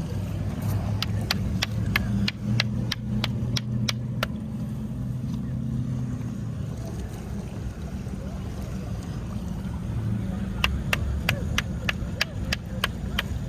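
Boat engine running steadily, with two runs of quick sharp clicks, about three a second, in the first few seconds and again near the end.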